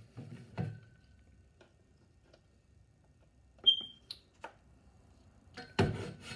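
Handling noise from a tablet set down face down: scattered clicks and knocks, a short high chirp a little past the middle, and a cluster of louder knocks and rustling near the end.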